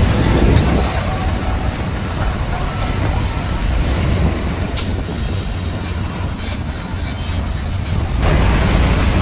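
Bulldozer diesel engine running with a heavy low rumble, with thin high-pitched squeals coming and going from its steel crawler tracks. There is a sharp click about five seconds in, and the rumble grows louder a little after eight seconds.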